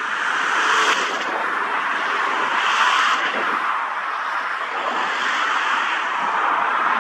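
Cessna Citation XLS business jet's twin turbofan engines, heard as a steady rushing jet noise with small swells.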